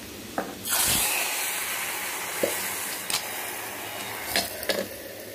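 Hot oil tempering with dried red chillies poured into a pot of cooked dalma (lentils and vegetables), sizzling loudly as it hits, starting about a second in and slowly dying down. A few light clicks of metal come through the sizzle.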